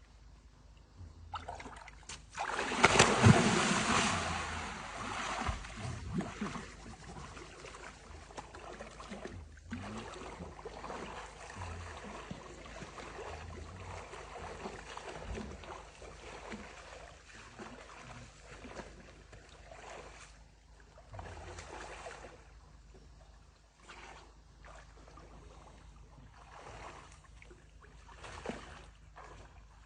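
Water splashing: a big splash about two and a half seconds in, as of a person plunging into the lake, followed by lighter, irregular splashing and sloshing of someone moving in the water.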